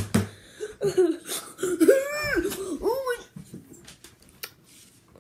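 A boy laughing: short wheezy bursts, then a drawn-out voice that bends up and down about two seconds in, dying away after about three and a half seconds.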